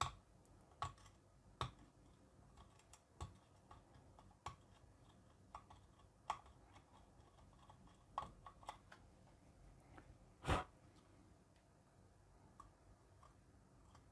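Faint, irregular clicks and scrapes of needle-nose pliers gripping and breaking a burnt surface-mount LED off an LED bulb's circuit board. About a dozen small clicks come at uneven gaps, the loudest a little past ten seconds in.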